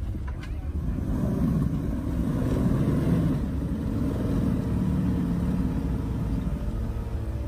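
Jeep Wrangler JK engine running at low speed with a steady low rumble.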